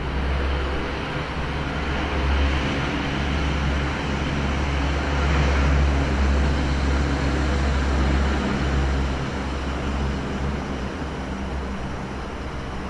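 Electric multiple unit passenger train approaching a station platform: a steady rumble that swells a couple of seconds in and eases off slightly near the end.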